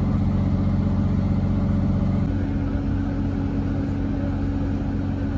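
Fire truck's diesel engine idling with a steady low hum, its tone shifting slightly about two seconds in.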